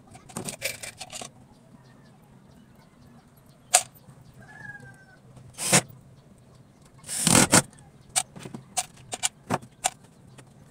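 Scattered knocks and clicks of tools and small parts being handled and set down on a wooden workbench, with a quick run of light clicks near the end. A faint chirp sounds in the background about halfway through.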